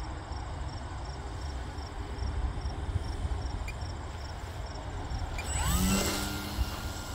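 Electric motor and propeller of a ParkZone Extra 300 RC plane doing a touch-and-go: about five and a half seconds in, the motor's whine rises sharply in pitch as the throttle opens, with a brief rush of air, then holds at a steady high whine. Crickets chirp steadily.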